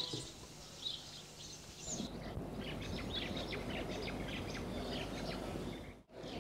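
Many small birds chirping and twittering over a steady low background noise. The chirping is sparse at first, thickens about two seconds in, and the sound cuts out briefly near the end.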